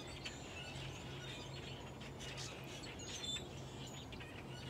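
Faint, scattered bird chirps, a few clearer ones about three seconds in, over a low steady hum.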